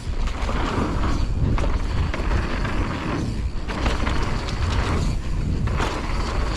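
Wind buffeting the action camera's microphone with a low rumble that swells and eases, over the rattle and clicking of a mountain bike rolling down a dirt trail.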